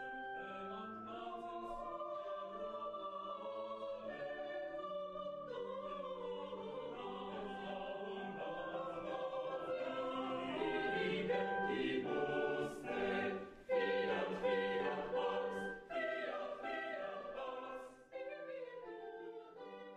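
Choir singing a slow church hymn in long, held notes, with a few brief clicks in the second half.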